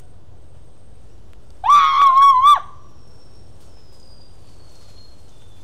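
A single high-pitched scream, held on one pitch for about a second, starting about a second and a half in.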